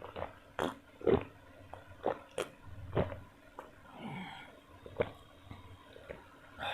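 Close-miked chewing and biting of food, with irregular wet mouth clicks and smacks, the loudest about a second in, and a short throaty sound near four seconds in.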